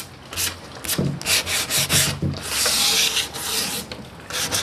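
A sheet of 120-grit sandpaper rubbed by hand over a primed wooden dresser top in quick back-and-forth strokes, a rasping hiss with each stroke. Near the middle it runs into one longer stroke.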